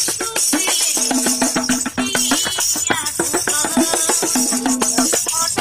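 Metal plate played as a hand drum, fingers tapping a fast rhythm with a bright metallic ring, under a melody of long held notes.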